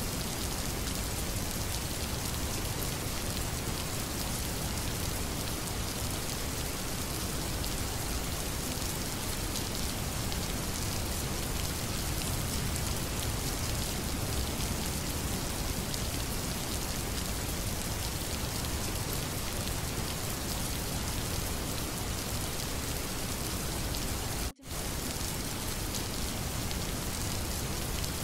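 Steady recorded rain, an even hiss of falling rain with no other sound over it. Late in the recording it cuts out for a split second and then resumes.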